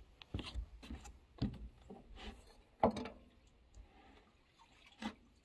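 Footsteps and knocks on wooden dock boards: four short thuds roughly a second apart, the loudest near the middle.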